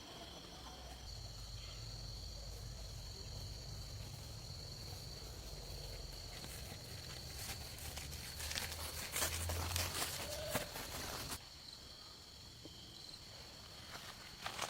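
A steady high insect trill over a low rumble. From about seven seconds in there is a run of clicks and knocks that cuts off suddenly near eleven seconds.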